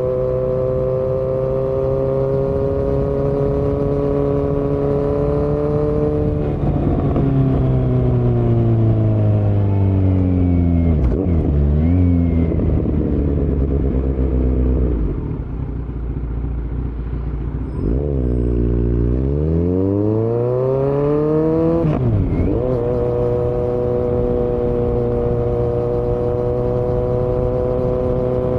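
Kawasaki Z900 inline-four running through an open Yoshimura muffler and Delkevic headers with no dB killer. It holds a steady pitch, then slows with the pitch falling and a brief blip or two, and runs low and a little quieter for a few seconds. It then accelerates back up and settles into steady cruising.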